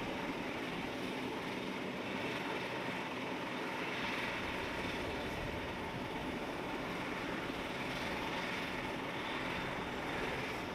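Dash 8 Q400's Pratt & Whitney PW150A turboprop engine running steadily during start-up, with wind noise on the microphone.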